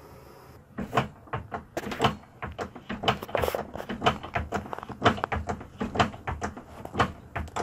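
A hand torch's hiss cuts off just before a second in. It is followed by a run of quick, irregular scraping and knocking strokes as the freshly annealed coin ring is sanded by hand.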